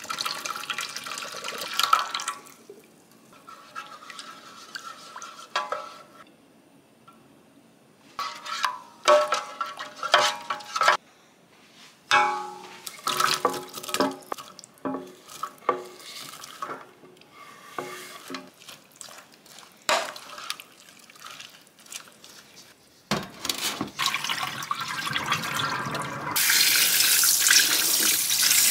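Kitchen prep: juice poured from a can into a stainless steel tray, then scattered knocks and taps as sliced onion is scraped off a wooden cutting board into the tray. Near the end a tap comes on and runs hard into a steel bowl in a stainless sink, rinsing beef short ribs in cold water.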